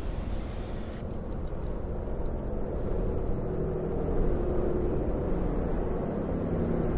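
Tour bus engine running as the coach drives up and around a bend toward the listener, a low rumble that grows gradually louder as it approaches.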